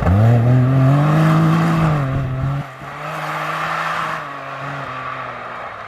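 Rally-raid car's engine revving up hard as it accelerates, holding high, then easing off. About two and a half seconds in the sound drops sharply, and a quieter engine runs on steadily at a lower pitch.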